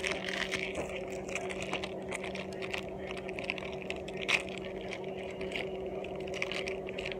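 Hands handling crinkly foil and plastic toy packaging: light rustling, crackling and small clicks, with one sharper click a little past four seconds in. A steady low hum runs underneath.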